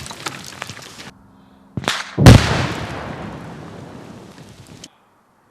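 Buried explosive charges in bedrock go off under blasting mats of fabric and lumber. A short sharp crack comes first, then about half a second later the loud main blast, whose rumble and debris noise die away over about two and a half seconds before cutting off abruptly. Before this, a dense crackling patter of falling rock and debris stops sharply about a second in.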